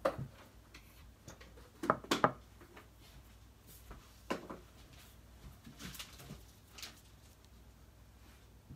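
Scattered knocks and clinks of bowls and utensils being handled on a kitchen counter, the loudest a quick pair of knocks about two seconds in, with lighter ones near four, six and seven seconds.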